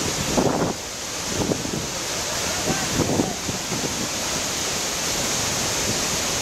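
A large waterfall in heavy flood: a loud, steady rush of falling water, with irregular gusts of spray-laden wind buffeting the microphone.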